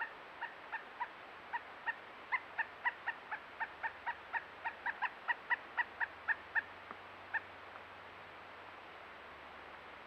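Pileated woodpecker calling: a run of about two dozen short, clear notes at roughly three to four a second. The notes grow louder toward the middle and end with a couple of spaced-out notes about seven seconds in.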